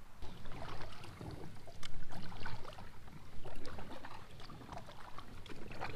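Kayak paddle strokes dipping and pulling through calm creek water, with uneven splashing and dripping.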